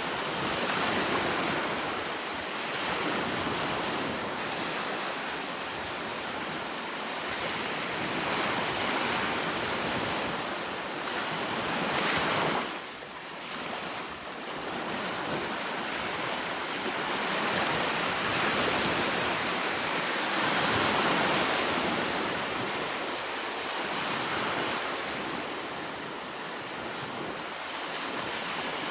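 Sea surf washing in continuously, swelling and easing every few seconds, with a sudden brief dip in level a little before halfway.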